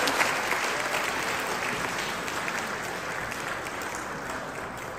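Audience clapping in a reverberant hall, steadily fading as the applause dies down.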